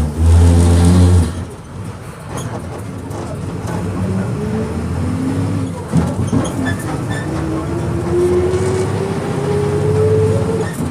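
Volkswagen 17.230 EOD bus engine running under load: a loud burst in the first second, then the engine note climbs steadily as the bus accelerates.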